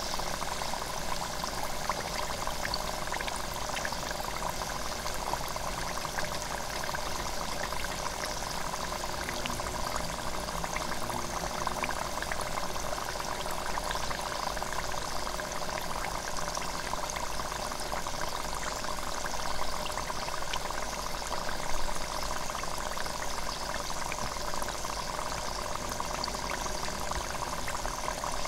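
Hot oil in an electric deep fryer sizzling and bubbling around a frying spring roll: a steady crackling hiss of many tiny pops, with a couple of slightly louder pops about two-thirds of the way through.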